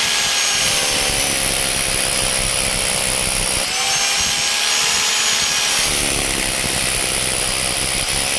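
Bosch GBH 2-28DV rotary hammer drill running after its service. Its motor speed drops and picks up again a few times, about every two to three seconds.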